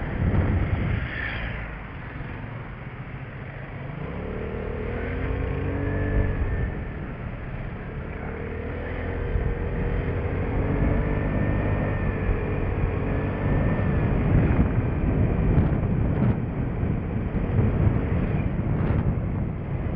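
Vespa LX150ie scooter's single-cylinder engine running under way, its pitch rising and falling through the middle, over a heavy wind rumble on the microphone. A few short knocks come near the end.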